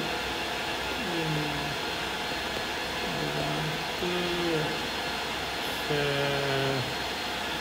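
A man's voice in four slow, drawn-out syllables or hums, over a steady background hiss.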